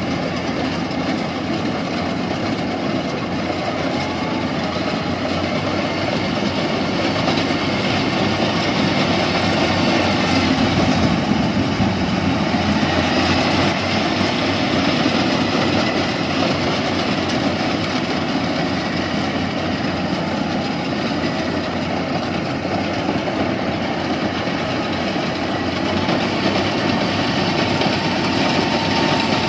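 Yanmar rice combine harvester running steadily, its engine and working machinery making a continuous drone that grows a little louder about ten seconds in.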